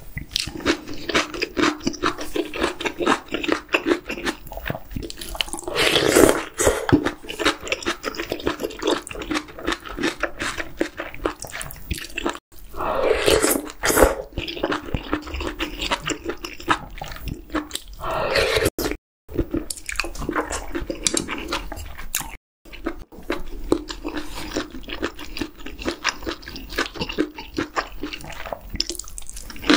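Close-miked eating sounds of octopus hot pot with chewy jjolmyeon noodles: wet chewing and lip smacking throughout, with a few longer slurps of about a second, around six, thirteen and eighteen seconds in.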